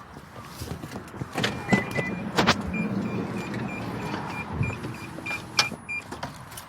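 A small motor hums steadily while a high electronic beeper sounds in a quick series, about three short beeps a second, stopping near the end. Several sharp clicks, the loudest about two and a half seconds in.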